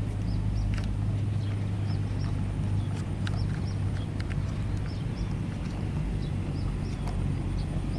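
Steady low rumble of outdoor ambience, with a run of short high chirps repeating every half second or so and a few light clicks.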